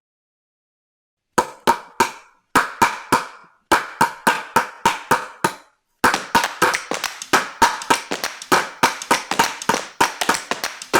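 Silence, then a run of sharp percussive hits with a short ringing tone, spaced out at first and coming quickly and densely from about six seconds in.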